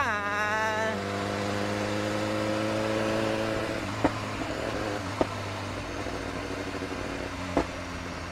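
BMW S1000RR's inline-four engine: revs drop abruptly as it shifts up a gear on the quick shifter, then it pulls with its pitch rising slowly for about three seconds before the throttle eases off. Three short sharp clicks come later.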